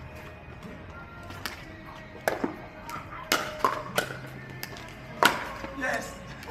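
Pickleball rally: paddles striking the hollow plastic ball, a string of sharp pocks, some with a brief ring, coming about once or twice a second. The loudest hit falls a little after the middle.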